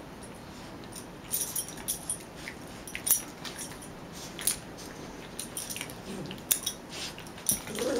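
Two Cairn Terriers play-wrestling, with scattered light metallic clicks and jingles from their collar rings. A short dog vocalisation comes about six seconds in and again near the end.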